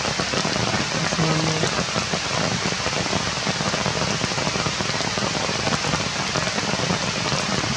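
Steady rain falling on forest leaves, an even hiss. A short low voice is heard about a second in.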